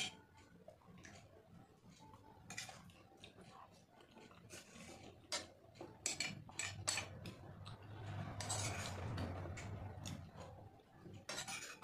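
Metal spoon clinking and scraping against a stainless steel plate while scooping water-soaked rice, in many short clicks with a busier stretch of scraping about two-thirds of the way through.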